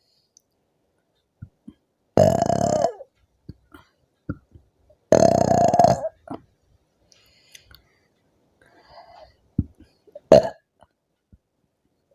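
A woman burping after gulping fizzy soda: two long, loud burps about two and five seconds in, each held at a steady pitch, and a short burp near the end, with a few small clicks in between.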